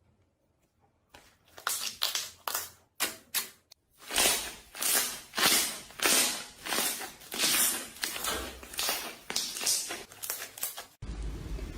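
Slime being worked by hand: a few sharp clicking pops, then a rhythmic run of squishing strokes, about two a second. Near the end it changes to a denser, continuous crackling.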